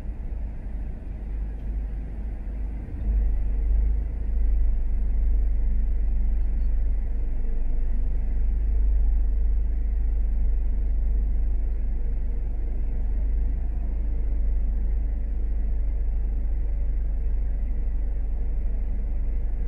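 A car being driven, a steady low rumble of engine and road noise that gets louder about three seconds in and then holds steady.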